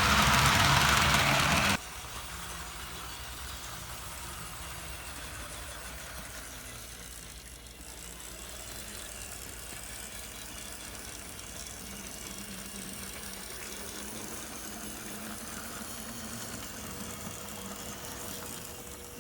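Tyco HO-scale GP-20 model locomotive running on track, its motor and wheels making a steady whir that cuts off abruptly about two seconds in. A faint low hum remains afterwards.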